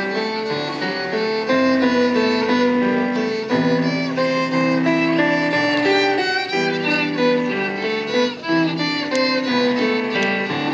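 A violin playing a classical-style solo melody of held, singing notes with vibrato, accompanied by piano.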